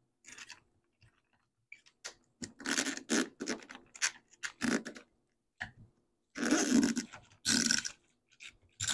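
Flathead screwdriver scraping and clicking against the plastic of a stock BMW N54 in-tank fuel filter/regulator housing while prying at the clip that holds the fuel-level float arm. It comes as an irregular run of short scrapes and clicks, the loudest a couple of seconds before the end.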